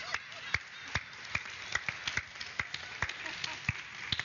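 Studio audience applauding, with sharp single claps standing out close by; the applause thins out near the end.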